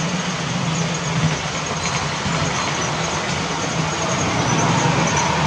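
Model Class 47 diesel locomotive and its coaches running past along the layout's track, a steady running noise with a low hum.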